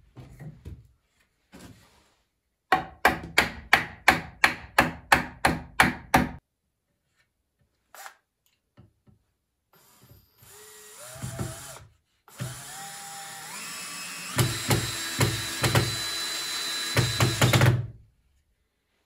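A run of about ten sharp knocks on wood, about three a second, then a cordless drill-driver running into a wooden batten: it spins up with a rising whine about ten seconds in, then runs loudly for about five seconds, stepping up in pitch, with knocks under it, and stops near the end.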